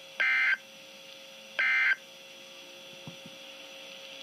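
NOAA Weather Radio SAME end-of-message data bursts: two short, harsh digital warbles about a second and a half apart, the last of the three that close the severe thunderstorm warning. Steady radio hiss and hum follow, with a faint click near the end.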